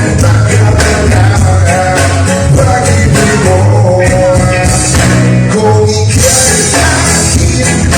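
Loud music with singing over a steady beat and heavy bass.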